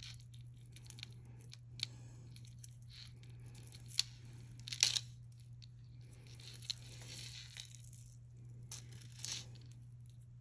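Soft rustling, crinkling and small clicks as a strand of jewelry is unpacked and handled, in short scattered bursts, over a steady low hum.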